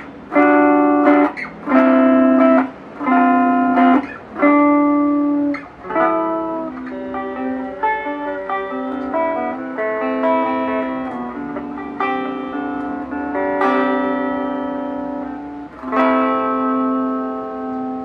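Clean electric guitar played through a small Belcat G-10 practice amp on its clean channel. A series of short, separated chord stabs gives way to ringing picked notes, and a final strummed chord about sixteen seconds in rings out.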